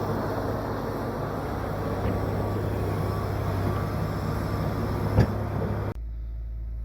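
Excavator's diesel engine running steadily, with one sharp knock about five seconds in. Near the end the sound cuts off abruptly to a quieter, lower steady hum.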